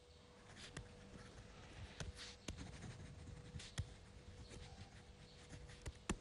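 Faint, irregular light knocks and clicks with brief rustles, over a low steady hum: small handling noises.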